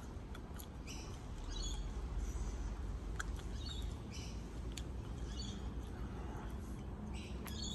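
Chewing a rock-hard dried fish: a string of short, irregular crunches and sharp clicks.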